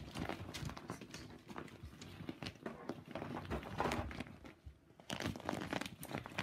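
Plastic crinkling and crackling in irregular bursts as cocker spaniel puppies play with an empty plastic bottle and plastic sheeting, with a brief lull about three-quarters of the way through.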